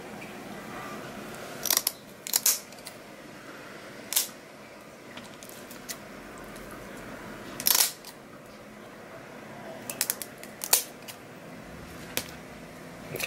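Kitchen scissors snipping the spines and fins off a whole lionfish: a string of sharp, short snips a few seconds apart, some in quick pairs or runs.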